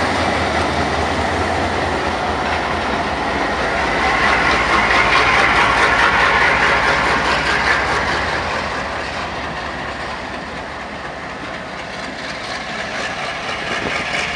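Alco diesel locomotive running under way as it hauls hopper cars slowly past, its engine mixed with the clicking of wheels over the rails. The sound swells about a third of the way in and eases off later before building again near the end.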